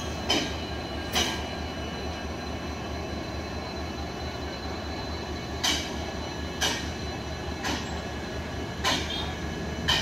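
Sharp metal clanks, about seven at irregular intervals, some of them ringing, from work to put a derailed railway coach back on the rails, over a steady low machine hum.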